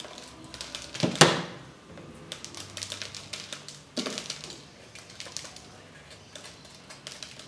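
Dried guajillo chiles being cut open and deseeded by hand over a plastic bowl: the brittle skins crackle and the loose seeds tick as they drop into the bowl. A sharper crack comes about a second in and again at about four seconds.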